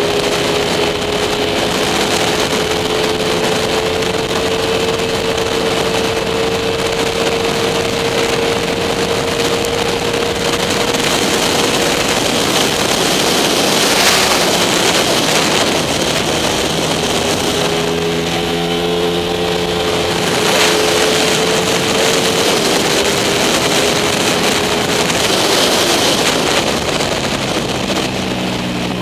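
Small-capacity race motorcycle engine running at high revs under a strong rush of wind over the onboard microphone, its note slowly climbing for about twelve seconds, fading into the rush, then climbing again through a gear a few seconds later and dropping as the rider backs off near the end.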